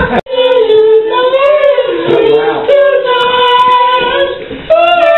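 A group of people singing together unaccompanied, holding long notes that step up and down in pitch, with a brief drop-out in the sound just after the start.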